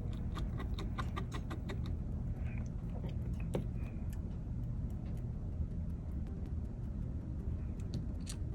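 Small light clicks and taps of tiny phone screws being placed and driven into a smartphone's metal frame with a precision screwdriver. There is a quick run of clicks in the first two seconds, then occasional single ticks, over a steady low hum.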